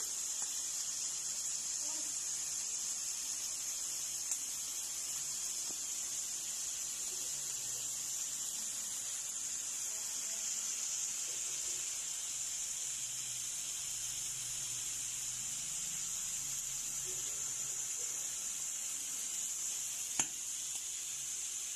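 Pork belly sizzling steadily on an electric grill, an even high-pitched hiss, broken by two short clicks, the louder one near the end.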